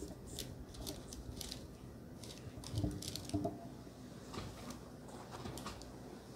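Close-miked eating sounds: a run of short, wet mouth clicks and chewing, with two louder soft thuds about three seconds in.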